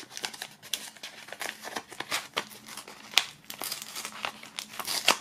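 White paper envelope being pried open by hand, its lightly glued flap pulling away with many short, irregular crackles and rustles of crinkling paper.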